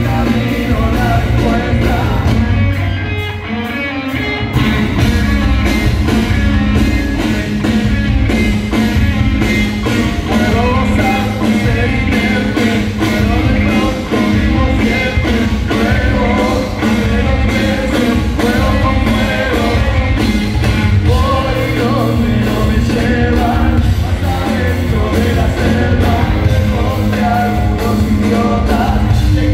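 Rock band playing live on drums, electric guitar and bass, with a voice singing, heard from the audience in an arena. The band drops back briefly about three seconds in, then comes back in full.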